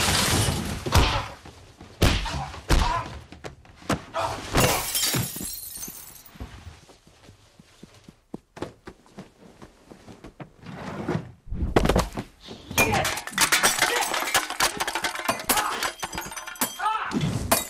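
Sounds of a violent fistfight: repeated thuds of blows and bodies hitting, and things knocked over and breaking. There is a shattering crash about four and a half seconds in and a quieter stretch in the middle, then a dense run of crashing and clattering over the last five seconds.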